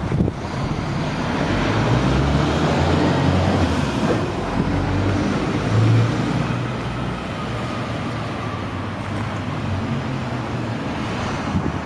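Doosan S018VT mini track excavator's engine running, its note swelling about two seconds in, with a brief surge near six seconds, then settling steadier.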